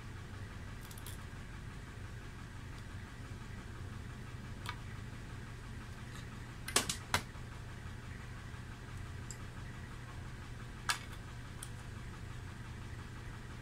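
Sharp clicks from small diagonal cutters trimming component leads on a gauge circuit board, the loudest a quick run of three about seven seconds in, with single clicks before and after. A steady low hum runs underneath.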